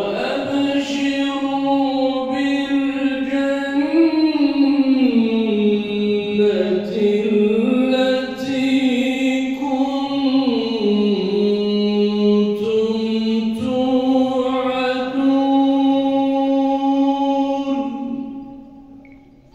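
A man reciting the Quran in the melodic aşr-ı şerif style, sung into a handheld microphone over a mosque's sound system as one long ornamented phrase. The pitch slides down and back up twice, and the phrase fades out near the end.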